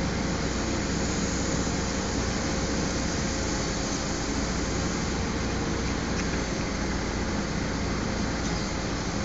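Toyota forklift's engine running steadily at low revs as the truck creeps forward, with no change in pitch or level.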